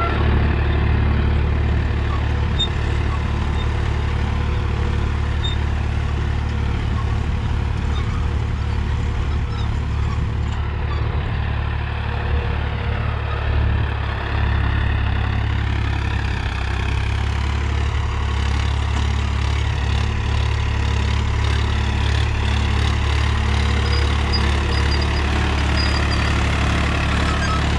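Swaraj 963 FE tractor's three-cylinder diesel engine running steadily under load at low revs, under 1500 rpm, while pulling an 18-disc harrow through the soil.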